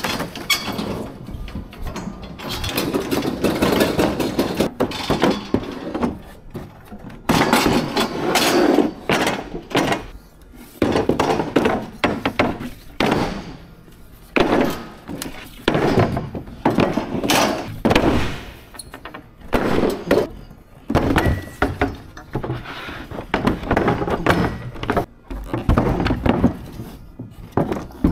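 Wooden tables being handled and loaded onto a metal table cart: repeated knocks, thuds and scraping of wood against wood and against the cart's metal frame. At first the steel cart is pushed across a concrete floor.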